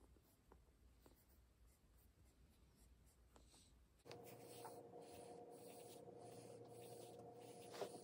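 Pencil scratching faintly on notebook paper in short writing strokes. About four seconds in, a low steady hum comes in under the writing.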